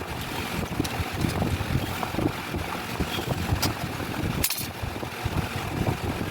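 Wind buffeting the microphone in uneven gusts, with a few brief sharp sounds over it, the strongest about four and a half seconds in.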